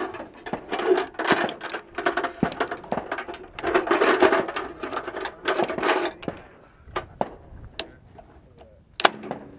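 Metal clinking and clicking of a linked belt of .50 caliber cartridges being handled and laid into the open feed tray of an M2 machine gun. The clicks are dense for the first six seconds and then thin out, and a single sharp metal clack comes near the end.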